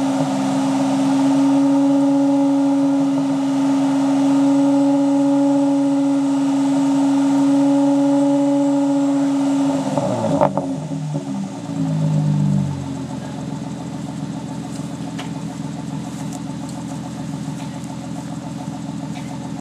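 Nissan Maxima V6 engine held at a raised, steady speed, then let go about ten seconds in with a click, the pitch falling over a couple of seconds and settling into a quieter idle. The engine is burning off a Sea Foam treatment, smoking heavily from the exhaust.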